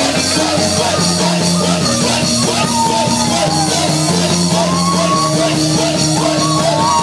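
Live church band playing loud, upbeat praise music on drum kit with steady bass notes, with voices singing over it from a few seconds in.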